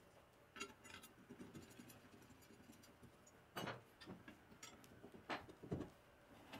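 Faint metallic clicks and clinks of a hex key and socket-head cap screws against a laser-cut steel plate as the screws are fitted and turned by hand. A few separate taps, the loudest about three and a half seconds in.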